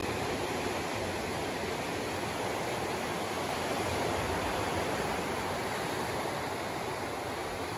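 Ocean surf breaking on the shore: a steady rushing wash of waves.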